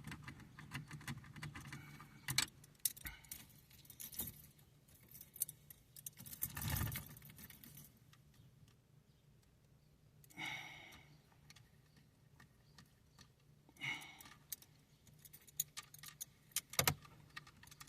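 Socket wrench with an extension turning a bolt on a steering column's ignition switch housing: scattered metallic clicks and light rattling, with a few louder short scrapes and knocks.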